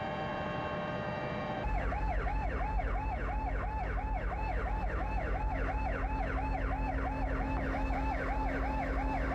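An electronic siren sounding in a fast yelp, about three to four rising-and-falling sweeps a second, starting abruptly about one and a half seconds in over a low steady engine rumble. Before it, a steady engine drone.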